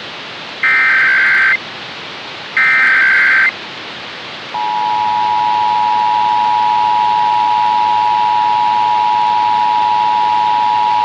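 Emergency Alert System activation on a radio broadcast. The last two of the three SAME header data bursts are heard, each a harsh buzzing squawk about a second long with a second's gap between them. About four and a half seconds in, the EAS two-tone attention signal (853 and 960 Hz sounded together) starts and holds steady.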